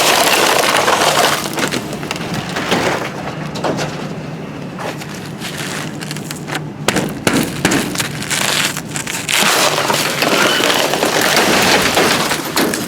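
Ice cracking and crunching as a frozen-shut metal dumpster lid is forced open, with many irregular sharp cracks and knocks.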